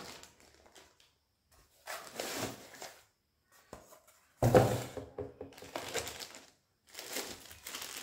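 Plastic wrapping crinkling and a cardboard packing insert rustling and scraping as the box contents are handled, in three noisy bursts. The loudest comes about halfway through and starts with a dull knock.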